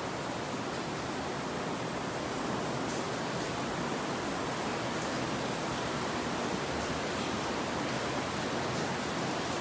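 A steady, even rushing noise with no tone or rhythm in it.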